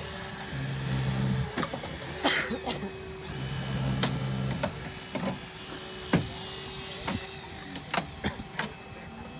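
Hydraulic rescue tool (jaws of life) working on a car body: its motor hums in spells of about a second while the tool is worked, with a steady whine and a few sharp cracks and snaps as the metal gives way.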